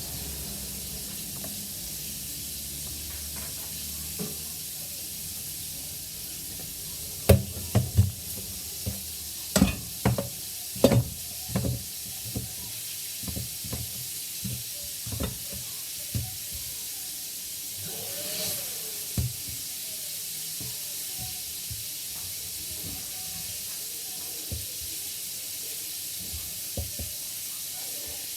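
Hot oil sizzling steadily as food fries. Between about seven and seventeen seconds in comes a run of sharp knocks and clatters, with a few fainter ones later.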